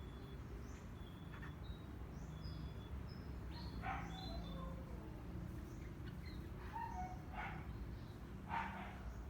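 Small birds calling: many short, high chirps, with a few louder, harsher calls about four seconds in and twice near the end, over a low steady background rumble.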